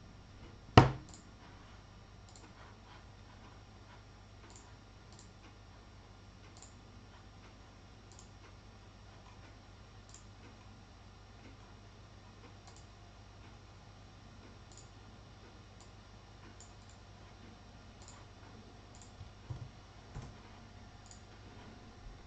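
Faint scattered clicks every second or two over a low steady hum, with one sharp knock about a second in and a few soft knocks near the end.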